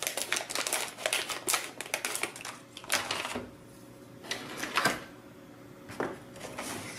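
Metallized anti-static bag crinkling and crackling as it is cut open and handled: a dense run of quick crackles for about three seconds, then a few scattered rustles.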